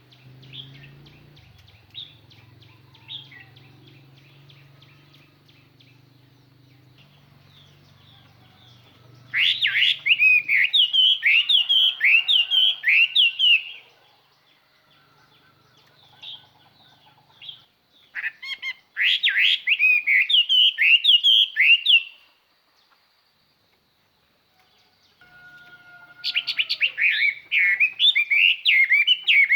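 Chinese hwamei, a decoy bird, singing its calling song: three loud runs of rapid, sweeping whistled notes, with soft ticking calls in the pauses between them.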